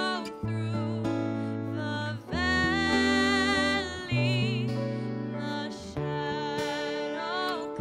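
Live worship band music: a young woman sings a slow melody with vibrato over strummed acoustic guitar and keyboard, with long held low bass notes.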